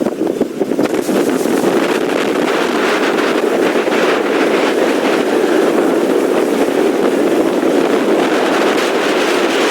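Hurricane-force wind rushing over the microphone, with surf underneath: a loud, dense, unbroken roar that is gusty for the first second and then holds steady.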